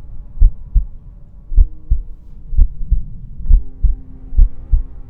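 Heartbeat sound effect: low double thumps, about one pair a second, over a steady low drone of held tones.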